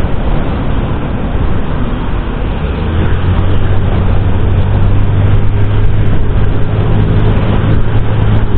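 Riding noise from a motor scooter on the move: a dense rush of wind and road noise with a steady low hum under it that gets louder about three seconds in.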